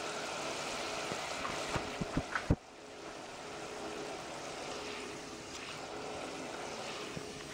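Potatoes sizzling and bubbling in hot vegetable oil in a Fry Daddy electric deep fryer, a steady hiss. A few sharp knocks about two seconds in, then the sound drops abruptly and carries on quieter.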